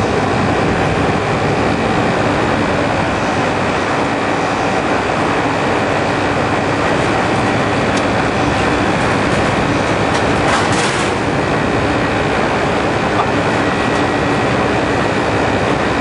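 Steady, loud drone of rooftop refrigeration and ventilation machinery running, with a brief rattle about ten and a half seconds in.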